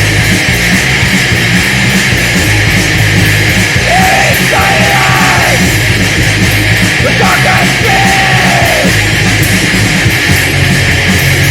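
Loud, heavily distorted heavy music from a cassette EP, a dense wall of sound over steady low notes. Two wavering held notes rise above it, about four and seven seconds in.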